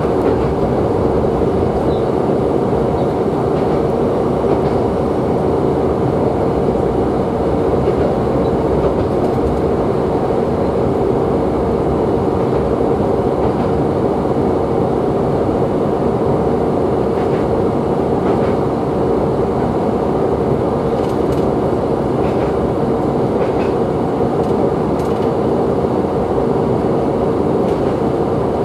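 Diesel railcar of the Tsugaru Railway running steadily at speed, heard from inside the passenger cabin: a constant drone of engine and wheels on rails, with a few faint clicks over the rail joints in the second half.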